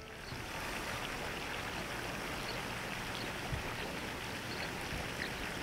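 Steady outdoor background rush, an even noise with no distinct events.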